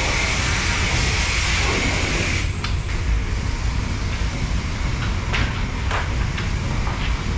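High-pressure car-wash wand spraying water onto an aluminium boat hull: a steady loud hiss with spatter, easing a little about two and a half seconds in, with a few short knocks.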